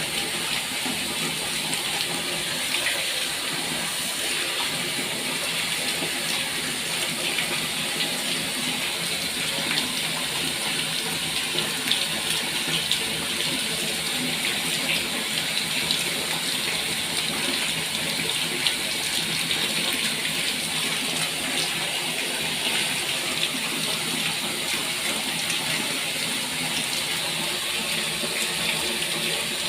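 Steady stream of running water splashing continuously, with a few small ticks and splashes along the way.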